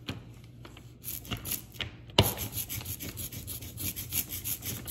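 Rubber brayer rolled back and forth through printing ink over a paper stencil, a quick run of rubbing strokes, with one sharp knock about two seconds in.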